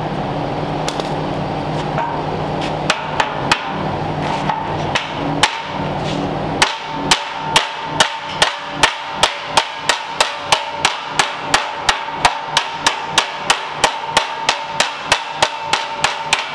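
A steady hum with a few scattered knocks, then, from about six and a half seconds in, a hammer striking metal in an even rhythm of about three ringing blows a second.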